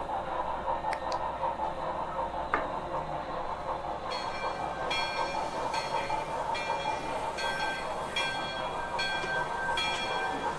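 Broadway Limited NYC J-1e Hudson model steam locomotive's onboard sound system playing its steam-engine running sounds over a steady mechanical running noise; about four seconds in, a ringing tone starts repeating at an even beat, a bit more than once a second.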